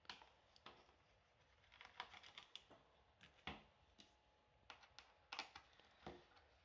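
Faint, irregular small clicks and taps of a Phillips screwdriver turning out the tiny screws from a Chromebook's plastic bottom case, with a few small clusters of clicks.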